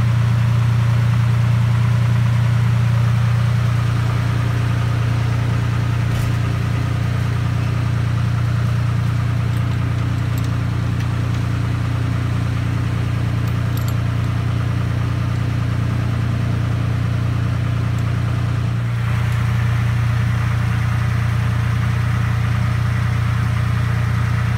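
A GAZelle van's ZMZ-405 petrol engine running with a steady low drone. The sound brightens slightly about three-quarters of the way through.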